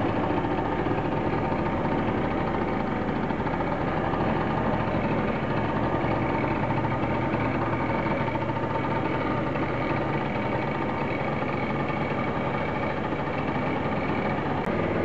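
Moped scooter's small engine idling steadily, with no change in speed.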